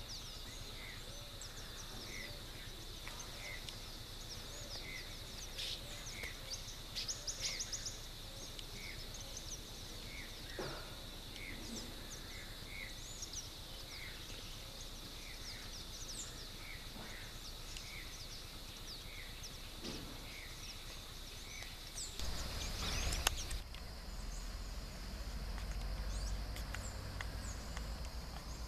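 Rural outdoor ambience: a steady high hum, short chirps repeating about twice a second, and scattered birdsong. Near the end a brief rustling noise is followed by low wind rumble on the microphone.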